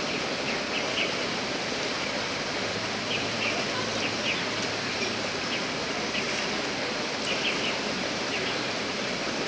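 Steady rush of water from the pool's fountains and swimmers' splashing, with short high bird chirps in twos and threes over it several times.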